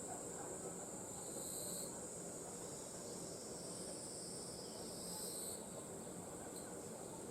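Forest insects calling: a steady, high-pitched chirring that never stops, with a second insect call joining in two short bursts, about a second in and again about five seconds in.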